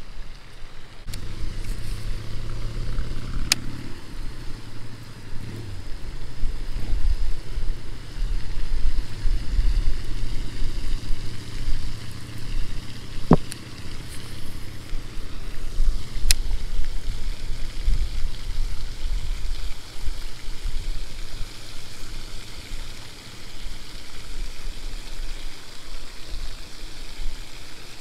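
Wind buffeting the microphone: an uneven, rumbling noise that rises and falls throughout. A few sharp clicks stand out above it.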